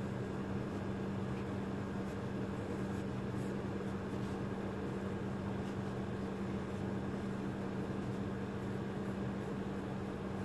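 Steady low hum over an even hiss, the constant noise of a running machine in the room, holding level throughout.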